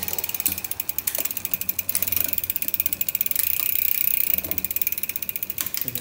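SRAM rear hub's freehub pawls clicking rapidly and evenly as the rear wheel spins freely.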